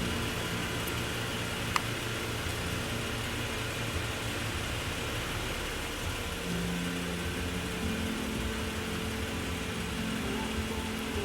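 A car engine runs steadily, with road or cabin noise under it, heard from inside the car. A single sharp click comes about two seconds in.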